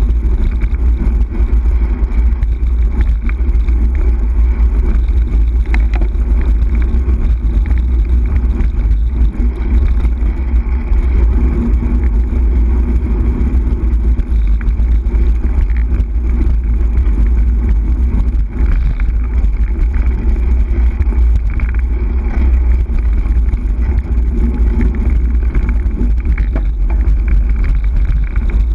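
Steady low wind rumble on the microphone of a camera riding on a moving bicycle.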